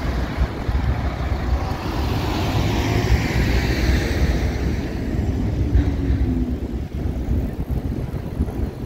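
Street traffic: a passing coach's engine and tyres pulling away, the hiss swelling a couple of seconds in and then easing off, over a steady low rumble of city traffic.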